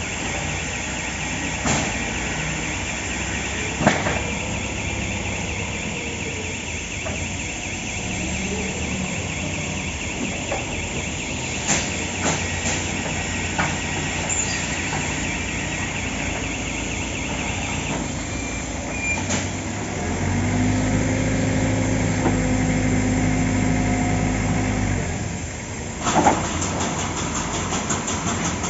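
Stringer pallet nailing machine running: steady machine noise with scattered sharp bangs, a hiss that stops about two-thirds of the way through, a steady low hum for about four seconds after that, and a short burst of clatter near the end.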